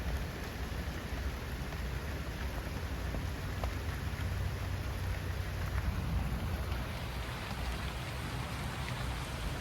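Very light, gentle rain falling: a steady soft hiss with scattered small drop ticks, over a low rumble.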